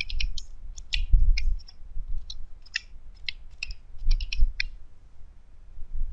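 Computer keyboard typing: irregular clicking keystrokes as a word is typed, stopping about four to five seconds in.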